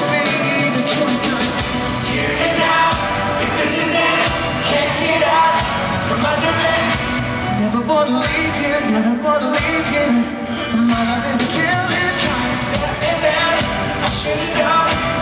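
Live rock band playing, with a man singing lead vocals over guitars and drums.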